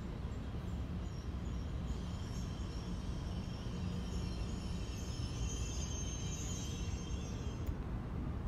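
New Jersey Transit electric train hauled by a Bombardier ALP-46A locomotive pulling slowly out of the station: a steady low rumble of the train rolling, with a faint high electric whine that comes in about two seconds in and stops near the end.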